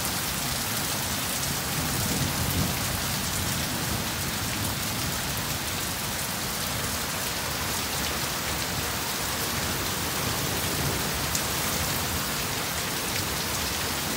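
Heavy rain pouring down and running off a roof edge in a steady hiss, with low thunder rumbling underneath and swelling a little about two seconds in.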